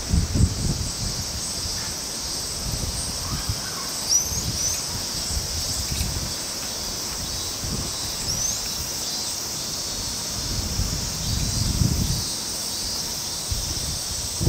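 Steady high-pitched insect drone with low rumbling wind on the microphone. A few short rising chirps come about four seconds in and again near eight seconds.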